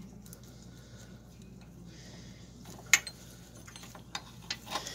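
Small metallic clicks and taps from handling a tool against a steel brake-hose fitting, with one sharp click about three seconds in and a few lighter ones near the end, over a faint low hum.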